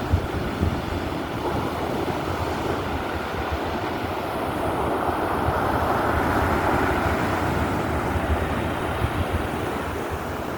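Stormy sea surf and strong wind, the wash of the waves swelling about halfway through, with gusts buffeting the microphone.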